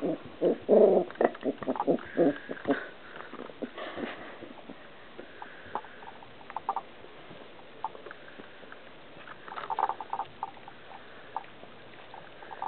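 Four-week-old Goldendoodle puppies grunting and giving small growls in a quick string through the first three seconds while they tussle over a chew bone. After that come scattered small clicks of teeth gnawing on the bone, with a short flurry of chewing about ten seconds in.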